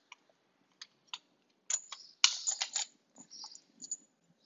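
Light clicks and rattles of a new door-knob lock's metal parts being handled, a few scattered clicks first, then a busier, louder cluster about two seconds in.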